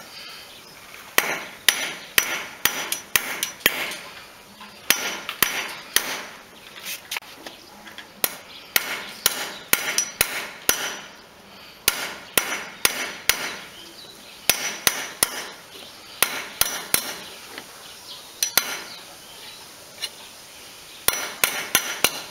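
Claw hammer tapping a thin steel rod laid on a sledgehammer head used as an anvil, metal on metal, bending the rod round into a ring a little at a time. The strikes come in quick runs of several a second, broken by short pauses.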